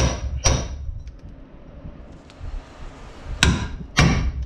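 Hammer blows driving a pickle fork (ball joint separator) between the upper ball joint and the steering knuckle to break the stud loose: two sharp metallic strikes with a brief ring at the start, a pause of about two and a half seconds, then two more near the end.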